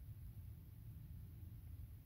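Near silence: only a faint, steady low rumble, with no distinct sounds.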